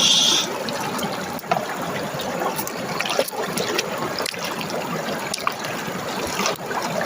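Shallow stream water trickling and splashing, with small scattered clicks and knocks through it and a brief hiss at the very start.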